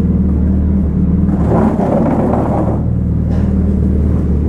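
Motorcycle engine running steadily, a constant low rumble, with a louder rush of noise that swells and fades around the middle.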